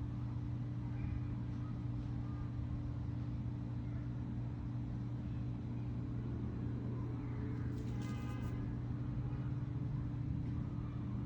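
Steady city traffic noise: a constant low hum under a haze of road noise, with faint short chirps above it. About eight seconds in, a brief pitched sound rises over it for under a second.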